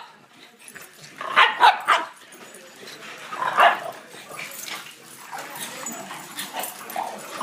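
French bulldogs barking while they wrestle and chase in play: a quick run of three barks about a second in, another about halfway through, then softer, shorter barks.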